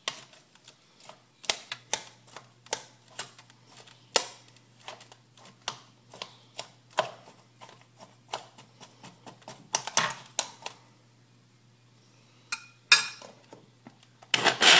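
A utensil knocking and scraping against a container of frozen strawberries: irregular sharp clicks, one to three a second, with a louder noisy burst near the end.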